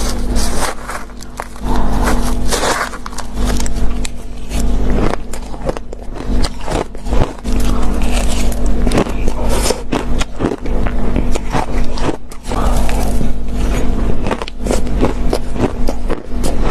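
Ice being bitten close to the microphone: a long run of sharp crunching cracks, one bite after another, over a steady low hum.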